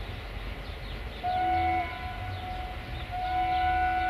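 Electric locomotive's horn sounding twice as the freight train approaches: a short blast, then a longer one starting about three seconds in. The locomotive is a Softronic Transmontana (Class 480), and the horn sounds over the low rumble of the train.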